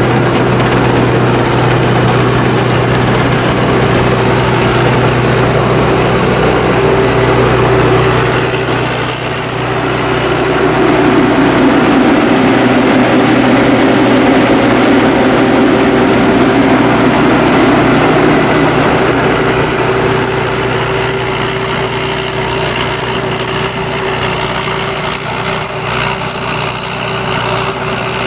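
Combine harvester running steadily, its 5-cylinder diesel engine and threshing machinery together making a continuous heavy mechanical noise with a thin high whine throughout.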